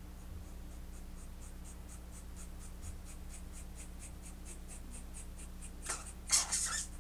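Scissors snipping into synthetic wig hair, a fast, even run of light snips at about five a second as layers are point-cut into the front, with a few louder, noisier sounds near the end.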